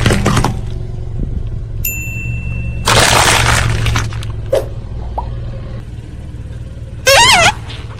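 Car engine running low and steady as a tire crushes objects: crackling crunches at the start, a short beep about two seconds in, a loud hissing burst about three seconds in, and a brief wavering squeal near the end.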